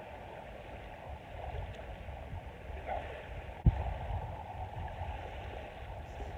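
Small waves washing on a sandy shore, with wind rumbling on the microphone, and one sharp knock about three and a half seconds in.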